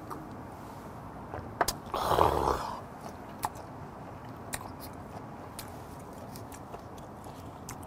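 A short, loud, breathy exhale about two seconds in, just after a shot of soju is swallowed. Around it are scattered small clicks of the shot glass and chopsticks on the table and of chewing.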